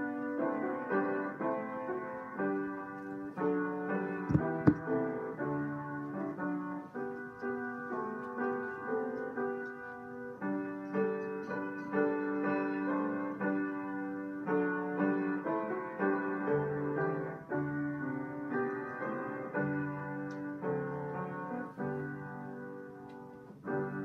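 Solo piano playing a slow, sustained prelude, chords held and changing every second or so, with two sharp clicks about four and a half seconds in.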